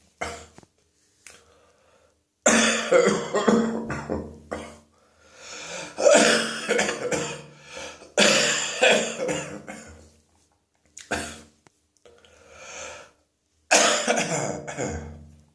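A person coughing in about five bouts of several coughs each, with short pauses between them. It is a wet cough from a throat infection.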